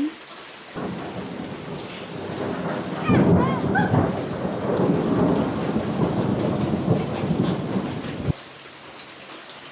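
Thunder rumbling over steady heavy rain after a lightning flash. The rumble swells about three seconds in and cuts off suddenly near the end, leaving the rain.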